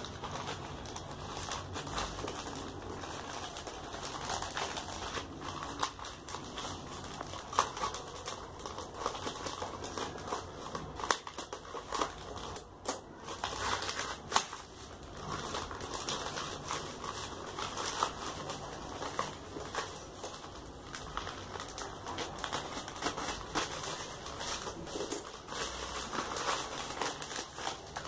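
Plastic courier mailer bag being handled, crinkled and torn open by hand: irregular crinkling and crackling, with a few louder rustles midway.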